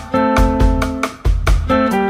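Instrumental background music: sustained pitched notes changing in quick succession over a steady beat.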